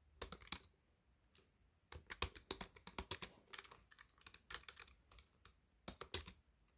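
Computer keyboard being typed on in bursts of quick keystrokes, a few short runs with a longer, denser run in the middle and brief pauses between them.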